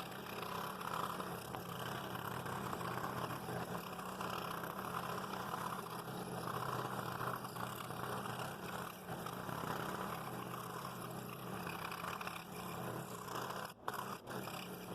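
A machine running steadily with a low hum, with a brief sharp knock near the end.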